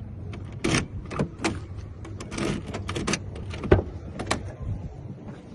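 Irregular clicks and clunks of a freshly cut spare key being tried in a Chevrolet Silverado's locks and doors, over a low steady hum.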